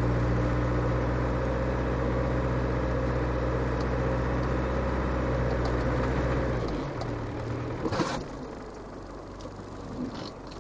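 Land Rover Defender 110's 300Tdi four-cylinder turbodiesel pulling steadily in low-range first gear, heard from inside the cab. About seven seconds in, the engine note drops to a quieter idle, and a sharp clunk follows about a second later.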